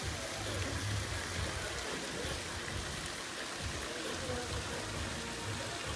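Steady splashing and spattering of water from fountains spouting into a swimming pool, with faint distant voices.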